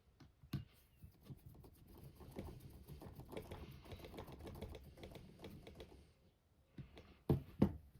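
Small plastic RC-car parts being handled and a countersunk self-tapping screw driven into a plastic body mount with a hand screwdriver: light clicks, then a run of fine ticking and scraping for a few seconds, and two sharper clicks near the end.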